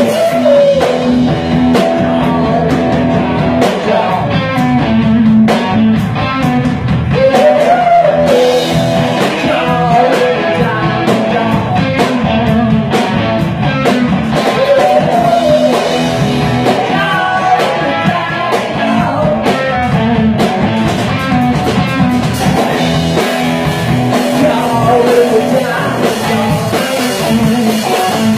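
Live rock band playing: a man sings into a microphone over electric guitar and a drum kit, loud and continuous.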